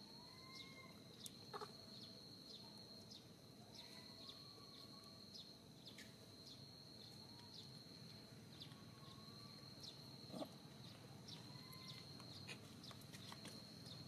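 Faint steady high-pitched insect drone, with scattered soft clicks and a few faint arching calls about a second long.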